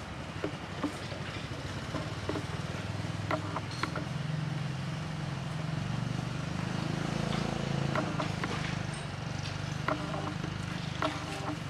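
A low engine hum that swells to its loudest about halfway through and then eases off, with a few short, sharp clicks scattered through it.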